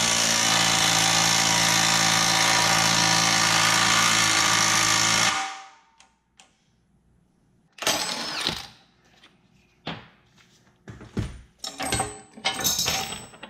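Cordless impact wrench hammering steadily as it turns the bolt of a bushing draw tool, pulling a sleeve into a Honda CRX rear trailing arm, then stopping abruptly about five seconds in. After a short pause come scattered clinks and knocks of metal tool parts being handled.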